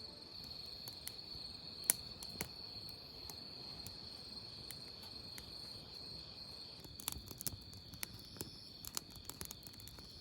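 Crickets chirring in a steady, high-pitched chorus, with scattered small clicks and taps that come more often in the second half.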